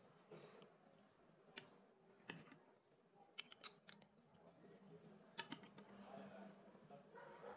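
Faint clicks and taps of a metal spoon against glass as soft pudding is scooped into a glass bowl: a few scattered ticks, with a quick cluster about halfway through and a pair near the end.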